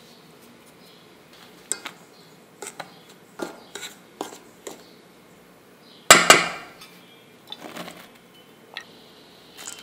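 Spoon clinking and scraping against a stainless steel mixing bowl while dry flour is stirred, with one much louder steel-on-steel clank about six seconds in and a few lighter clinks after it.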